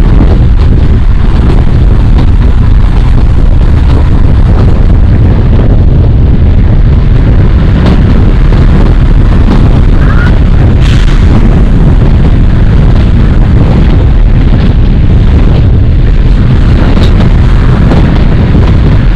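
Kalka–Shimla narrow-gauge train running, a loud, steady low rumble with a brief higher squeak about ten seconds in.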